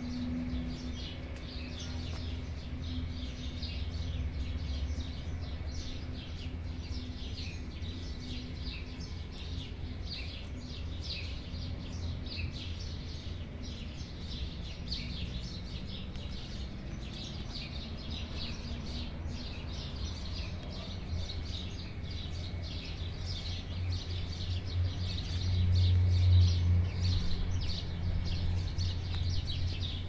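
Songbirds chirping and singing continuously in dense short high notes, taken for nightingales. Beneath them runs a steady low rumble that grows louder for a couple of seconds about 25 seconds in.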